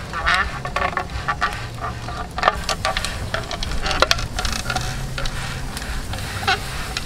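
Irregular crackling and sizzling of a whole pig roasting on a spit over charcoal, its glaze and fat spitting on the hot skin and coals as it is brushed on.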